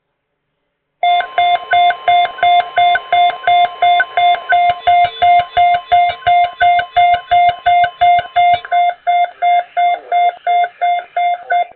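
Weather alert radio sounding its beeping alarm, about two and a half beeps a second, over the steady 1050 Hz NOAA Weather Radio warning alarm tone. The pair announce an incoming weather alert; the steady tone cuts off about eight seconds in while the beeping goes on.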